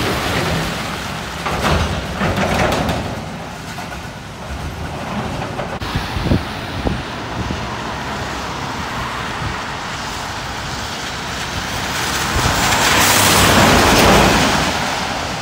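Scania lorries on a wet road: one pulls away, its engine and tyre hiss fading over the first few seconds. Near the end another passes close by, swelling to a rush of engine and tyre spray.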